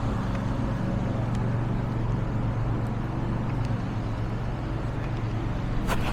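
A steady low engine hum, even in level throughout.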